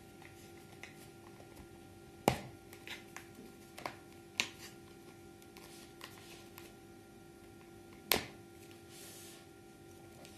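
Pieces of a disassemblable plastic skull model clicking and knocking as they are handled and fitted together. A handful of sharp clicks come between about two and five seconds in, and one more near eight seconds, over a faint steady hum.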